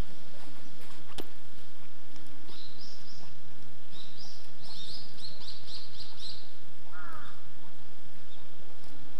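Small birds chirping in a quick run of high notes, followed by a shorter, lower call, over a steady background hiss, with one sharp click about a second in.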